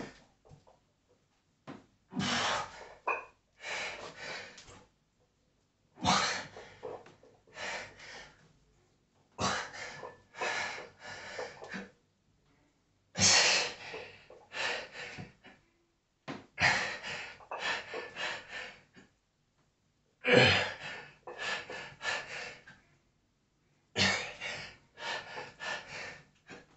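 A man's heavy, forceful breathing under strain: sharp gasps and exhales in clusters about every three to four seconds, each cluster opening with a stronger breath, while he works through a heavy set of barbell bent-over rows.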